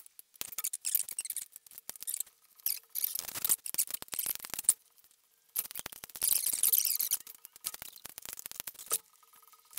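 Small walnut and maple hardwood blocks clicking and scraping against each other and the workbench as they are slid and pushed together by hand. There is a run of quick clicks and scrapes, with a short pause about halfway through.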